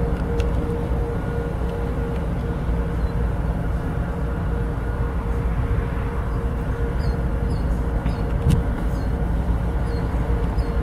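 GE ES44C4 diesel locomotive's V12 engine running as the train rolls slowly, a steady low rumble with a steady hum over it. Short high chirps come and go.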